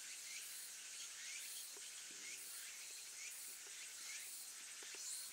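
Insects chirping in a steady pulsing rhythm, about two pulses a second. A couple of faint light ticks come from a small handheld whetstone worked gently along a knife edge.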